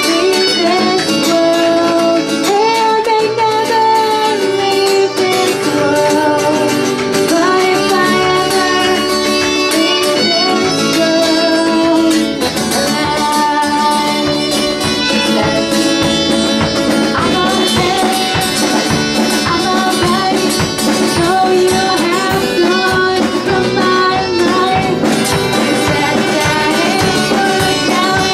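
Live folk-rock band playing: a bowed violin carries the melody over strummed acoustic guitar, with singing. The strummed rhythm grows busier about halfway through.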